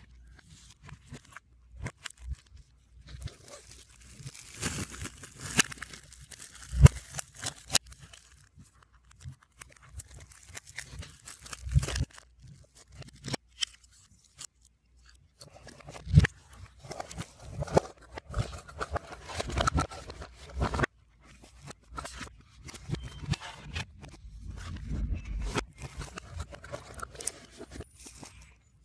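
Album packaging being unwrapped and handled, played in reverse: irregular crinkling, tearing and clicking of plastic wrap, paper and card, with short pauses between bursts.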